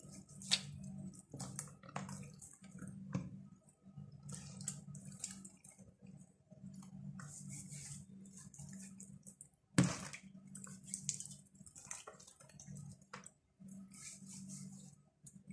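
Wet squelching and slapping of hands massaging a spice marinade into whole raw zubaidi (silver pomfret) in a plastic basin, in irregular bursts as the fish are turned, with a sharper knock about ten seconds in. A steady low hum runs underneath.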